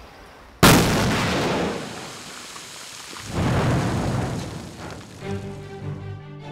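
A rock-blasting charge going off on an excavated hillside: a sudden loud blast about half a second in that dies away over a second or so, then a second rumbling surge about three seconds in. Background music comes in near the end.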